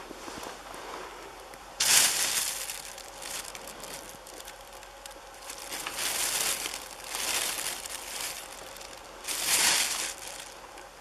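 Thin plastic bag crinkling in four bursts as a hand rummages inside it, the first and last the loudest.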